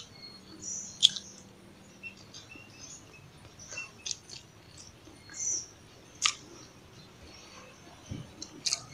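A person eating by hand: soft chewing with wet mouth clicks and smacks, and a few sharper clicks about a second in, near six seconds and near the end.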